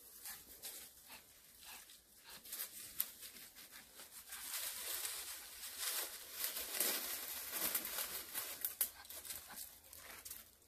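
Footsteps crunching and rustling through dry fallen leaves and twigs, a dense run of small crackles that grows louder a few seconds in and fades near the end.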